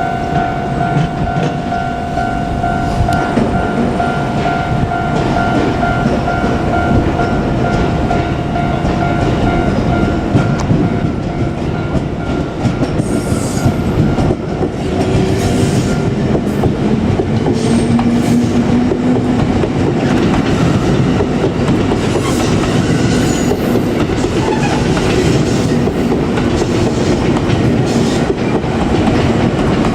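JR Kyushu 787-series electric train running past a level crossing, with the clickety-clack of its wheels over the rail joints. A level-crossing warning bell rings steadily over it and fades out about halfway through.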